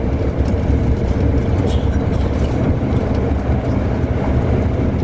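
Steady low rumble of a tour bus driving along, its engine and road noise heard from inside the cabin.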